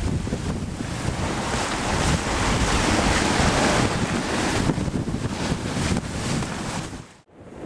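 Wind buffeting the microphone over the rush of sea water around a sailing boat, with a sudden brief cut-out near the end.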